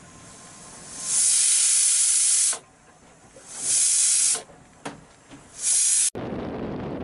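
Steam hissing loudly in three bursts of about a second each from a pot of rice cooking on a single-burner stove. About six seconds in, it cuts abruptly to the steady rush of wind and water around a sailboat underway.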